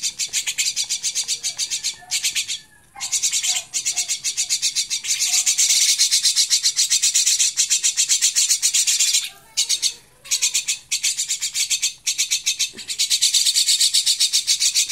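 Fledgling birds begging for food: rapid, raspy high calls at roughly ten a second, in long runs with a few short breaks.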